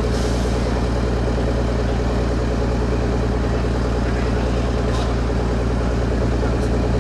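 Heavy diesel engine running at a steady idle, a continuous low drone with no change in speed.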